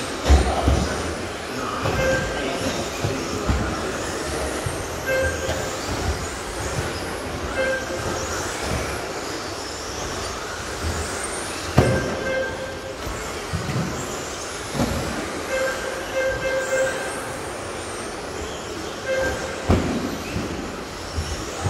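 Radio-controlled electric trucks racing on an indoor carpet track: a steady whine of motors and tyres echoing around the hall, with sharp knocks from landings or hits on the track edges and short beeps repeating every few seconds.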